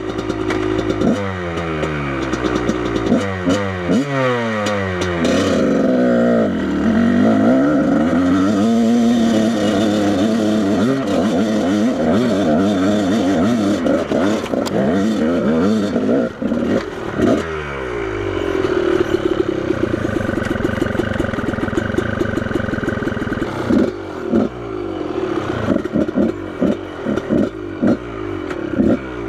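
Off-road motorcycle engine revving and labouring up a rocky hill, its pitch rising and falling again and again as the throttle is worked, with rocks and the bike clattering and scraping.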